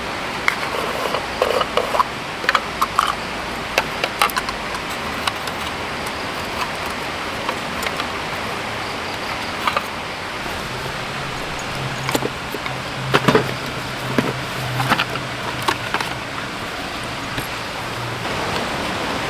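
Steady rush of a forest stream under scattered light clicks and knocks. A low steady hum joins about halfway through and lasts several seconds.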